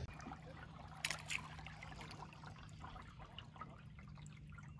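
Faint trickling and dripping of river water around a kayak, with a light click about a second in.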